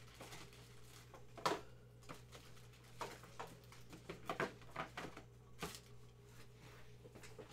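Trading cards and their packaging being handled, giving scattered light clicks and rustles with a few sharper snaps, over a low steady hum.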